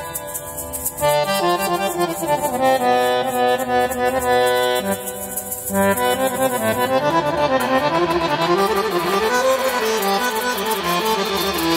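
Roland XPS-30 keyboard playing a melody over held chords, with a fast, light ticking percussion pulse; the music grows fuller about seven seconds in.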